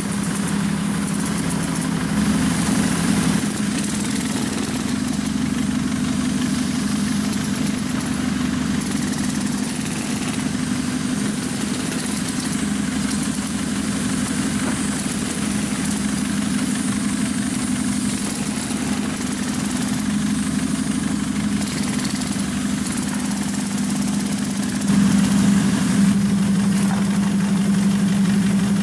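Steady low mechanical hum, like an engine or machine idling, running without a break and growing a little louder near the end.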